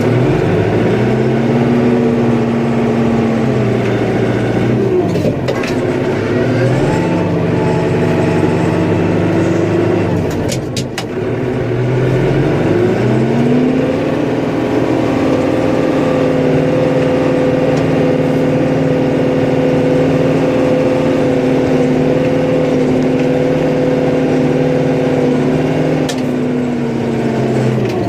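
The engine of a snowplowing vehicle revs up and down in pushes. It climbs, holds and falls back twice in the first ten seconds or so, then climbs again and holds a steady higher speed for most of the rest before dropping near the end. A few brief knocks come in between.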